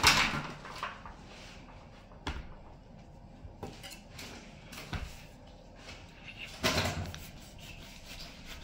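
Handling noises of a large half watermelon being shifted and set upright on a cutting board, with a knife picked up and pushed into it: a loud scraping thump right at the start, a few light knocks, and another louder scraping sound about two-thirds of the way in.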